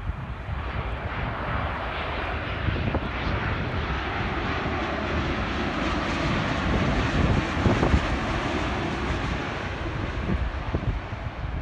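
Boeing 787-9 airliner on final approach passing low overhead, its jet engines making a steady rushing noise that swells as it comes over and eases near the end.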